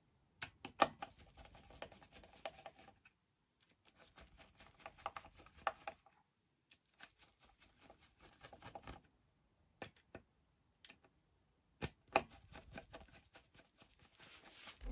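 A hex screwdriver tightening a screw in the pedal bracket of a Veteran Sherman S electric unicycle: light clicks and small ticks of the tool working in the screw head, in short runs with brief pauses between them.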